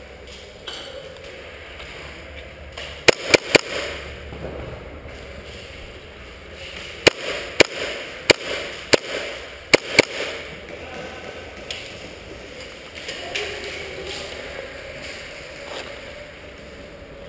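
Airsoft guns firing single shots: about nine sharp cracks echoing in a large empty hall. Three come close together about three seconds in, and six more follow between about seven and ten seconds in.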